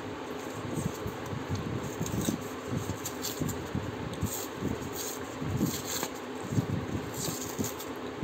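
A paper cupcake liner crinkling and rustling as it is peeled off a marble cupcake, with many small irregular crackles over a steady background hum.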